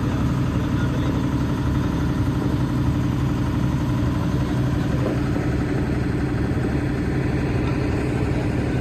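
Hitachi Zaxis 210K excavator's diesel engine running steadily.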